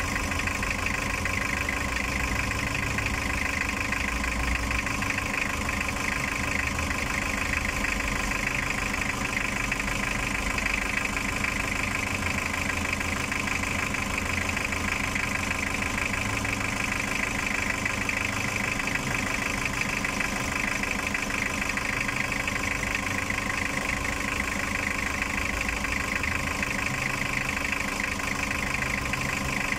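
Toyota 2L four-cylinder diesel engine idling steadily, with an even rapid ticking over its running note, just after a top overhaul with a replacement cylinder head.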